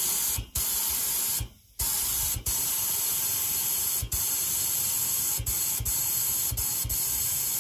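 Compressed air from a blow gun hissing as it blows out the other side of a Briggs & Stratton 26 hp V-twin Intek engine, one loud hiss broken by a pause about a second and a half in and several brief dips.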